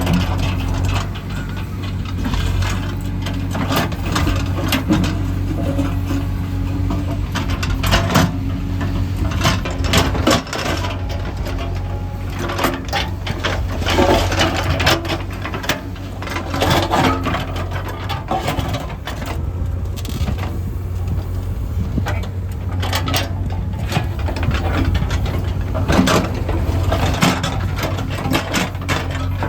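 Diesel engine of heavy construction machinery running steadily, with frequent irregular clanks, knocks and rattles from the machine at work.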